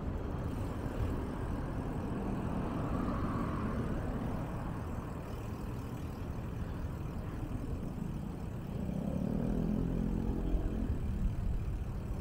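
Road traffic passing on the street alongside, over a steady low rumble of wind on the microphone from riding. About nine seconds in, a passing vehicle's engine hum swells and fades.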